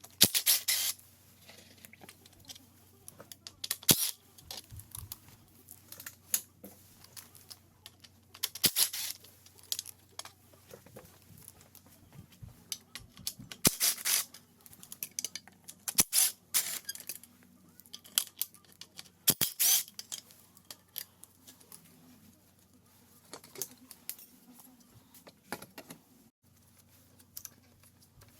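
Hand tools and metal motorcycle parts clinking, knocking and scraping in irregular bursts during teardown, over a faint low hum.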